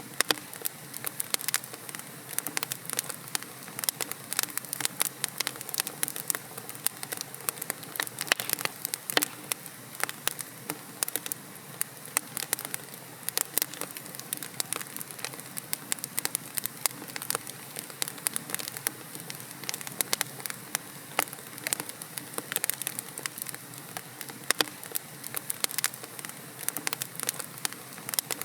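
Wood logs burning in a fireplace: dense, irregular crackling and popping over a soft steady hiss.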